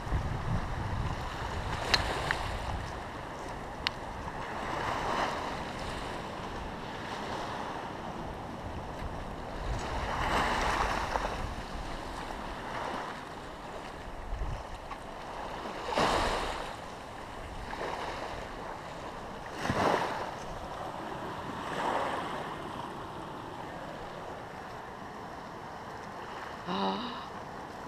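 Sea surf washing in and out, with a louder wave surge every few seconds. There is light wind on the microphone.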